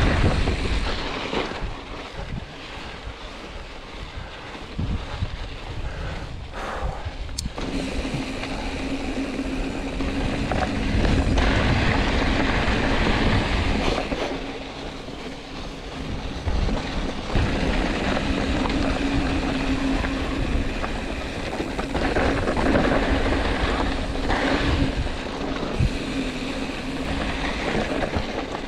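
Wind rushing over the camera microphone and mountain bike tyres rolling over loose dirt and gravel, rising and falling with the riding. A steady low hum joins about seven seconds in.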